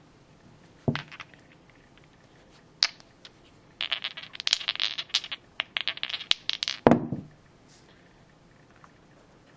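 A pair of dice clattering: a few single clicks, then a rapid run of hard little clicks for about three seconds, ending in a heavier knock.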